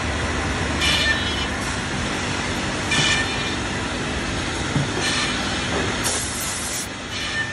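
Woodmaster WM-2000BI automatic dowel machine cycling as it drills, injects glue and drives wooden dowels, over steady workshop machinery noise. It gives short high-pitched bursts about every two seconds and a longer hiss about six seconds in.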